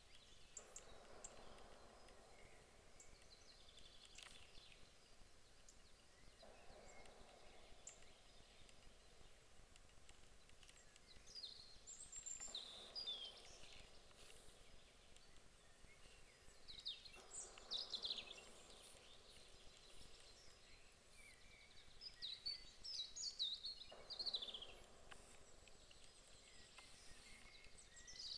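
Faint outdoor ambience with a small songbird singing short, high phrases that fall in pitch, repeated about every five seconds from about a third of the way in.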